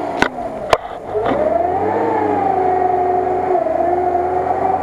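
Lada Niva engine revving high and held under load as the car pushes through deep water, with a whining tone that climbs about a second in and then stays steady. Two sharp clicks come in the first second.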